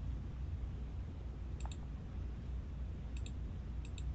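Faint short clicks, mostly in pairs, about one and a half, three and four seconds in, over a steady low hum.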